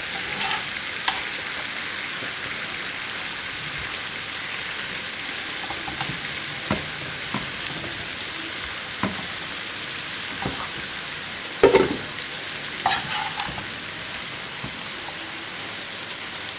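Chicken sizzling steadily as it fries on an iron tawa, with a few scattered short knocks, the loudest about twelve seconds in.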